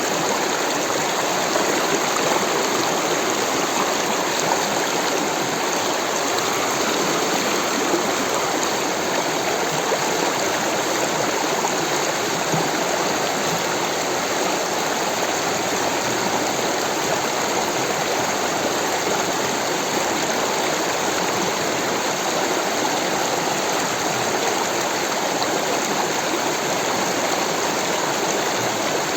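Rushing water of a stream, a steady, even rush with no let-up.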